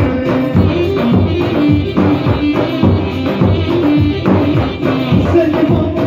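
Live amplified music from an electronic keyboard: a melody over a steady drum beat.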